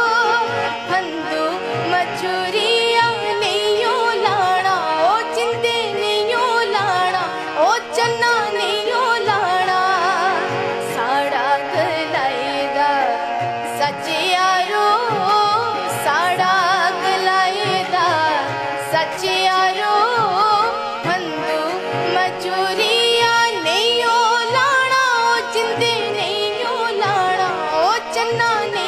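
A woman singing to harmonium and tabla accompaniment. Her voice bends through ornamented phrases over the harmonium's sustained notes and a steady tabla beat.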